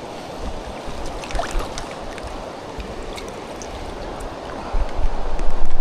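Mountain trout stream rushing steadily over rocks, with a few faint clicks. A louder low rumble of wind on the microphone sets in near the end.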